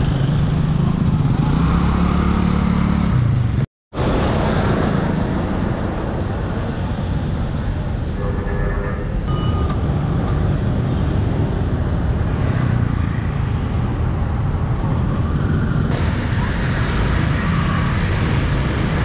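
Steady street traffic noise: vehicle engines running and passing in a continuous rumble. It drops out for a moment about four seconds in.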